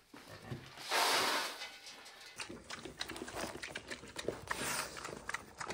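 Pigs eating feed. A brief rush of noise about a second in, then a rapid run of wet chomping and smacking clicks with faint low grunts.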